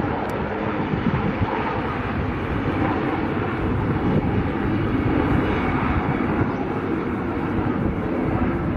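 IAR 330 Puma helicopter flying low past, its rotor and twin turboshaft engines making a steady, loud noise, with wind buffeting the microphone.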